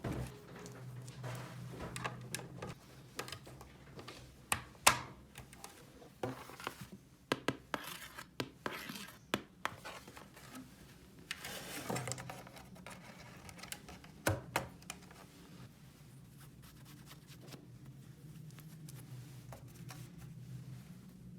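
Small hard objects being handled: scattered clicks and taps with short scratching and rubbing, busiest in the first half, over a faint steady low hum.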